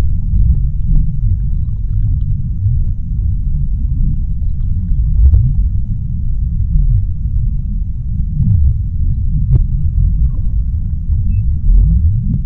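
Underwater sea ambience: a deep, steady rumble with slow low glides now and then and scattered faint clicks and crackles.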